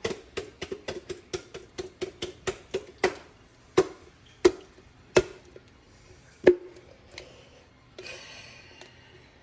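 Series of sharp metallic taps, each with a short ring: about three a second at first, then a few louder ones spaced further apart, stopping about six and a half seconds in. A brief rustle follows near the end.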